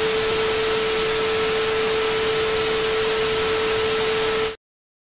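Television static hiss with a steady single test tone running through it, the 'no signal' sound effect, cutting off abruptly near the end.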